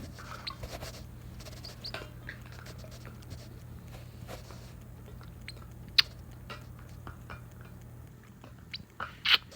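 Pet parrot handling and gnawing at a toy: scattered small clicks and scratches, one sharp click about six seconds in and a louder short rasp near the end, over a low steady hum.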